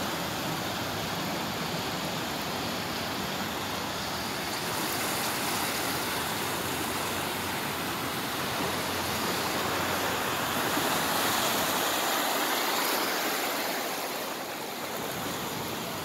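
Steady rushing and splashing of deep floodwater across a street, churned into waves by cars driving through it. It swells a little past the middle.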